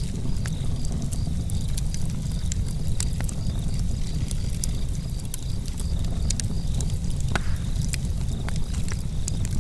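Campfire crackling with many sharp, irregular pops over a steady low rumble of the flames, while crickets chirp steadily in a high, even pulsing rhythm.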